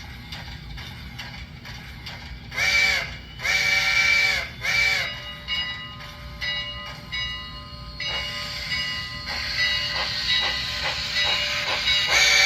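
Steam whistle sound from the HO scale Milwaukee Road Hiawatha model locomotive's onboard sound: three blasts, two long and one short, each sliding up in pitch and down again. Then the running sounds of the locomotive starting off, with clicks and a hissing chuff that grow louder toward the end.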